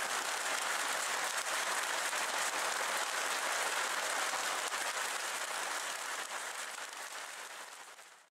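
Steady rain falling on a lawn and a puddled concrete path, an even pattering hiss of many drops, fading out near the end.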